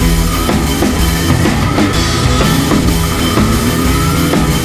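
Rock music with a drum kit keeping a steady beat, laid over the footage as a soundtrack.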